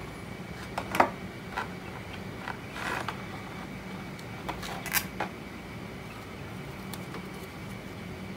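Clear plastic display case of a small model plane being pried open and handled: scattered sharp clicks and crackles of stiff plastic, the loudest about a second in, with a short rustle near three seconds. A faint steady hum runs underneath.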